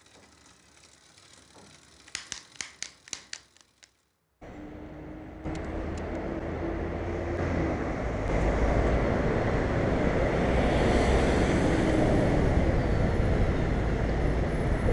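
Wind rushing over a helmet-mounted camera's microphone, mixed with city traffic noise, while riding a bicycle. It starts suddenly about four seconds in and builds to a loud, steady rush. Before that there is a quiet stretch with a quick run of about eight clicks.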